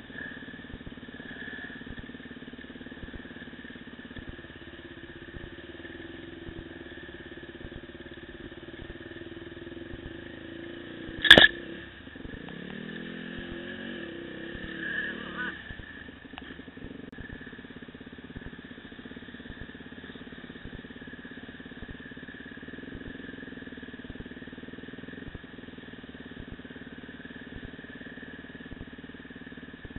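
Dirt bike engine running steadily while riding a muddy trail, with one sharp, loud knock about eleven seconds in and a few seconds of shifting engine pitch just after.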